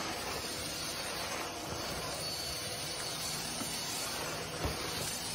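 Stick vacuum cleaner running steadily: an even rush of air with a thin high whine over it, and one brief knock near the end.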